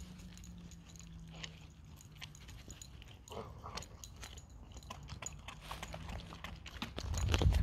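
A greyhound's mouth working at a raw beef paddywhack: scattered small wet clicks of licking and chewing. A louder low rumble comes in near the end.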